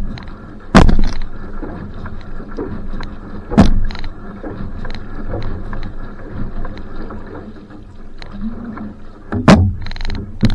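Va'a outrigger canoe being paddled: water rushing along the hull with regular paddle strokes, and three loud knocks spread through the stretch.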